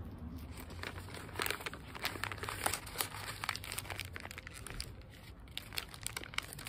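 Paper crepe wrapper being crumpled and folded in the hands: irregular crinkling crackles.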